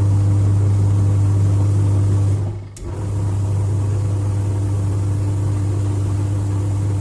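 Twin-tub washing machine's wash motor running on a new drive belt: a steady electric hum with no squeal, which shows the worn, loosened belt that was squeaking has been cured. About two and a half seconds in the motor stops briefly with a click, then starts again.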